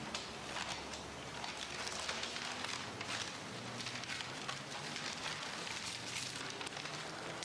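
Crackling rustle of a plastic bag being handled and pulled out of a case, with many small crackles and clicks.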